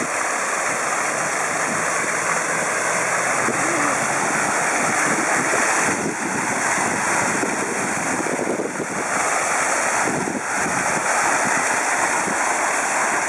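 Vertical water jets of a fountain set into the paving, splashing down continuously in a steady, even hiss of falling water.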